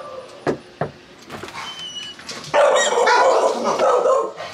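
Three knuckle raps on a front door in the first second, then, from about two and a half seconds in, a dog barking loudly and repeatedly inside the house.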